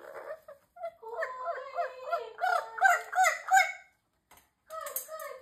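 Amazon parrot vocalizing: a quick run of about six arched, rising-and-falling whistled notes, then a shorter burst of calls near the end.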